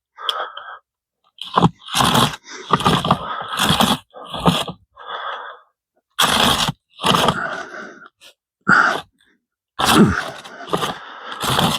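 Hand-pulled pocket chainsaw chain rasping through wood in irregular back-and-forth strokes, each about half a second to a second long with short gaps between them. The chain cuts against a good bit of resistance.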